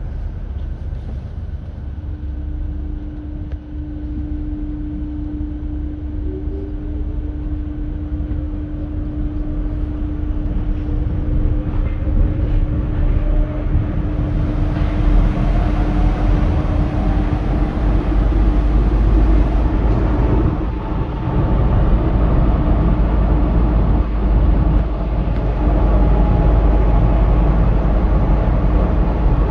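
Paris Métro MF77 train heard from inside the car as it pulls away and accelerates. A steady electrical tone comes in, then a motor whine climbs slowly in pitch, over a rumble of running gear that grows louder as speed builds.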